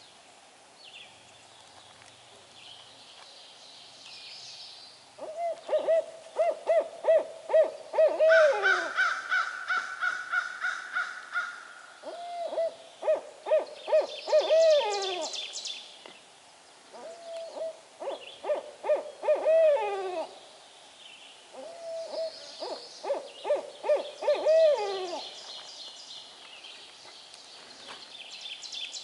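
Barred owl calling: four bouts of rapid, evenly paced hoots, each ending in a falling note, starting about five seconds in.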